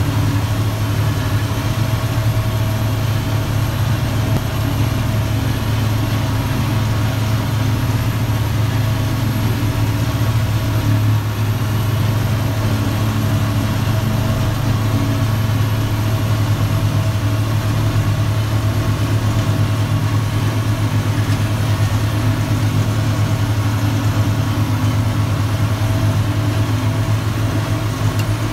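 150 hp donkey engine on a trailed forage harvester running steadily under load while the forager chops grass and blows it up the spout, a loud, unchanging low drone.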